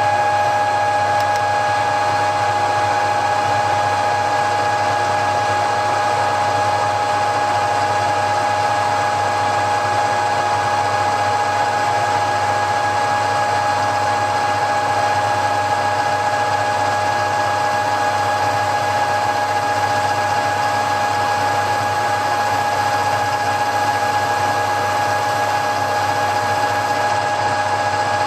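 Machine tool running at a steady speed under its electric motor, with a constant high whine over a low mains hum and no change in pitch or level.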